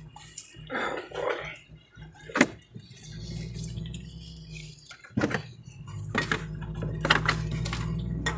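Low steady hum of a car heard from inside the cabin, with sharp knocks and rustles from the phone being handled. A few muffled words come near the start.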